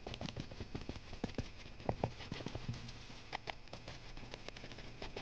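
Several people's hurried footsteps on a hard floor: a quick, irregular clatter of steps.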